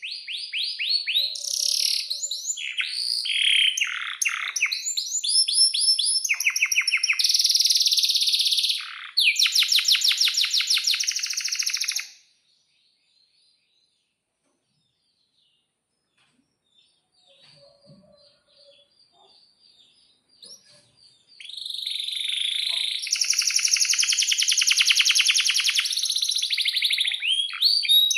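Male domestic canary singing long, varied song phrases with fast rolling trills. The song breaks off about twelve seconds in, leaving a few seconds of near silence with faint chirps. It then starts again with another long rapid trill.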